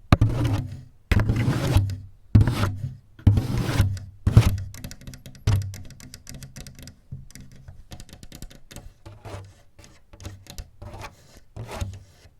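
Close-miked ASMR tapping and scratching: a run of rough scratching and rubbing strokes, each under a second, with knocks in the first half, then lighter, quicker taps after about six seconds.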